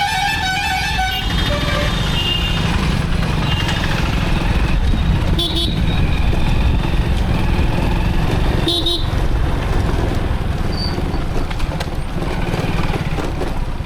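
Steady low rumble of wind and engine from a moving motorcycle in town traffic. A vehicle horn honks in the first second, with fainter horn notes later and two short sharp sounds in the middle.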